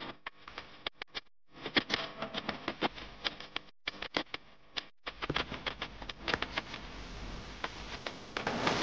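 Metal spoon clicking and scraping against a small glass spice jar while scooping ground black pepper and shaking it over the pot, a run of quick, irregular ticks with rustling between them.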